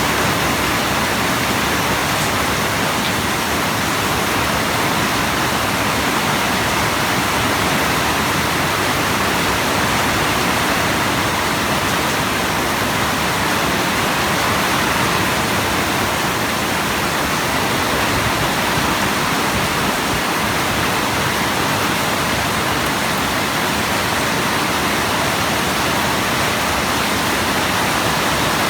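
Steady, heavy rainfall: a dense, even hiss of rain with no single drops standing out.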